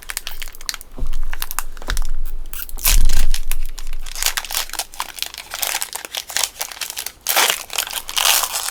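Foil wrapper of a Pokémon trading card booster pack crinkling and tearing as it is handled and opened. There is a dull thump about three seconds in.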